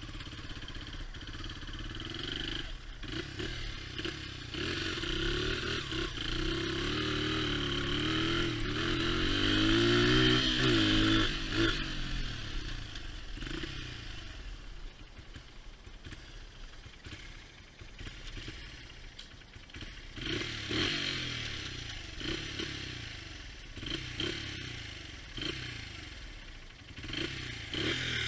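A 2002 Honda XR80R's small single-cylinder four-stroke engine running as the dirt bike is ridden. It revs up to its loudest about ten seconds in, then drops back to a lower, uneven run. The engine runs poorly, which the owner puts down to low compression or the spark plug.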